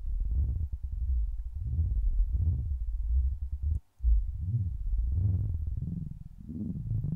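Helm software synthesizer playing a low note through a resonant filter whose cutoff is swept by a slow step sequencer and LFOs: a deep, dark, irregular bubbling gurgle that keeps rising and falling. The note cuts out briefly about halfway through and is played again.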